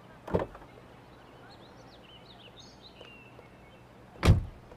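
A Maserati sedan's door is shut with one heavy thump near the end, after a softer knock just after the start. Faint bird chirps are heard in between.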